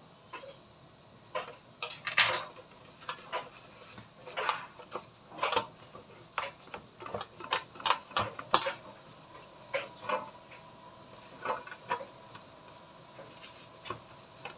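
Irregular clicks and knocks with paper-towel rustling as a raw salmon fillet is handled and patted dry with paper towels in a metal tray; the loudest knock comes about two seconds in.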